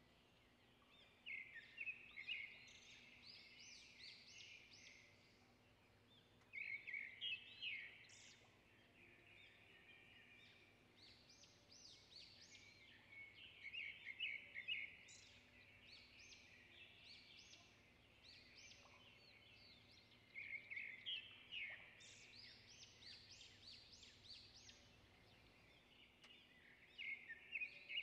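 Faint bird chirping: short bursts of rapid twittering that come back about every six to seven seconds, over a faint steady low hum.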